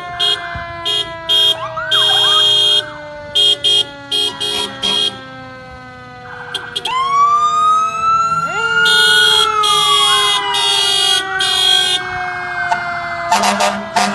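Several fire engine and police vehicle sirens wail and yelp together, overlaid with repeated short horn blasts. About seven seconds in, one siren rises steeply, then falls slowly.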